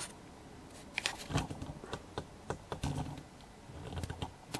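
Irregular light clicks and a few soft knocks from a camera and its mount being handled and re-aimed.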